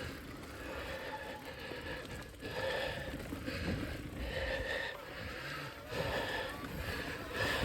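Heavy, labored breathing of a mountain biker mid-ride, hard breaths coming about once a second.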